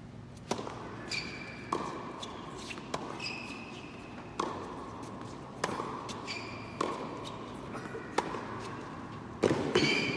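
Tennis rally on an indoor hard court: a serve, then racket strikes on the ball about every second and a bit, echoing in a large hall, with short high shoe squeaks between some of the shots. A louder, denser burst comes near the end.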